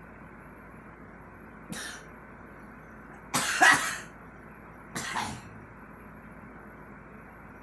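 A girl coughing: a short cough, then a louder double cough, then one more cough, the middle pair the loudest.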